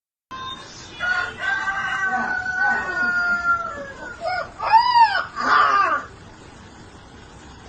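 A rooster crowing: one long drawn-out call that drops in pitch at the end, followed by a few shorter arched calls and a harsher squawk, dying away about six seconds in.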